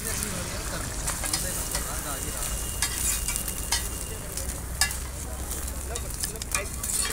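Egg-coated paratha sizzling on a hot flat metal griddle, with a metal spatula scraping and clicking against the griddle now and then as the roll is flipped and pressed down.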